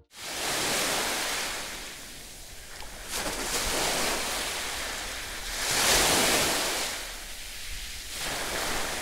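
Small sea waves washing onto a sandy shore, the surf noise swelling and fading in slow surges every few seconds.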